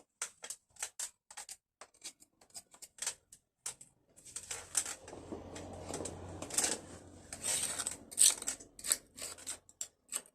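Irregular light clicks and knocks of hand work on the tractor's clutch and bell-housing parts, with a few seconds of rubbing noise and a faint low hum in the middle.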